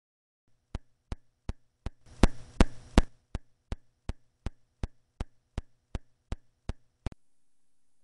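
Regular electrical pops from a broken audio feed, nearly three a second, over a low hum. The loudest pops come with a burst of hiss around two to three seconds in, and the popping cuts off suddenly near the end. The owner puts the fault down to having kicked the keyboard, which sent the audio haywire.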